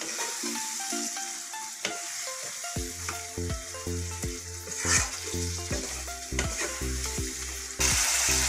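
Chicken sizzling in oil in a non-stick kadai while a spatula stirs and scrapes it, with the sizzle growing louder near the end. Quiet background music plays under it, its bass coming in about three seconds in.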